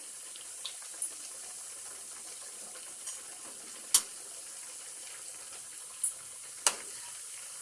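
Potato-poha snacks deep-frying in a kadhai of hot oil, a steady sizzle. It is broken by a few sharp clicks as they are turned in the pan, the loudest two in the second half.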